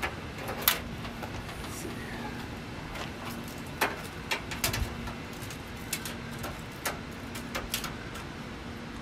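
Scattered light clicks and taps of a steel tape measure being handled and held against the truck bed, a dozen or so irregular ticks over a steady low hum.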